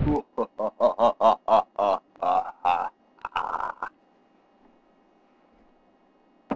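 A voice making a quick run of short wordless pitched sounds, about four a second, part of a one-man a cappella performance; it stops about four seconds in.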